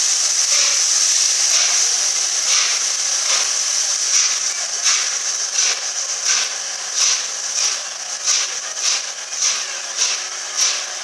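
Steam locomotive LNER Peppercorn A1 Pacific 60163 Tornado hissing steam, with slow exhaust chuffs at a little over one a second that quicken as it gets under way. The hiss is loudest for the first few seconds, then eases.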